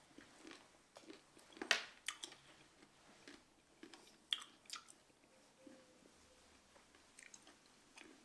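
A person chewing a mouthful of redcurrants close to the microphone: scattered short mouth clicks, smacks and small crunches, several bunched in the first five seconds and a few lighter ones near the end.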